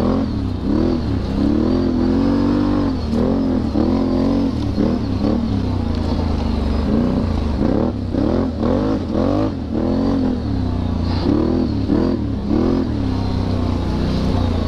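ATV engine under hard riding, its revs rising and falling over and over as the throttle is worked.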